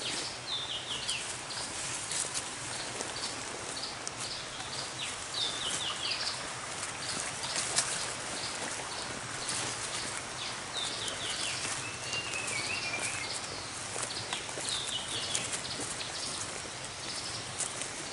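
Forest birds calling in short runs of falling chirps, repeated throughout, over footsteps crunching and rustling in dry leaf litter.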